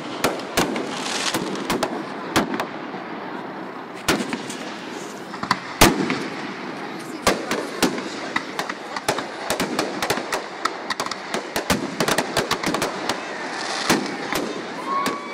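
Aerial fireworks bursting: irregular sharp bangs, the loudest about six seconds in, then a quick run of crackling reports through the second half.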